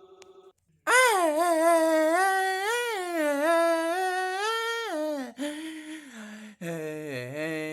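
A wordless voice holding one long sound of wavering pitch for about four seconds, rising and falling without breaking into words, followed by a shorter, lower held sound and then a deeper one near the end.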